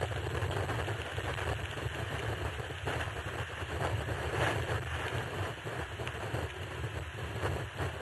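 Steady low rumble and hiss of outdoor background noise, like wind on a microphone, with a few faint clicks.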